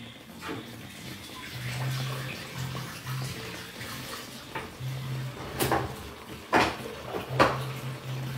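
Cream sauce with chicken fillets simmering in a frying pan, bubbling steadily, with a few sharp pops in the second half as bubbles burst.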